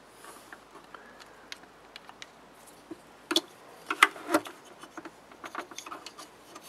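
Small screwdriver clicking and tapping against the plastic housing of a Bestway hot tub pump while prying out the old little black impeller-shaft caps: scattered light clicks, with a few sharper ones about three and four seconds in.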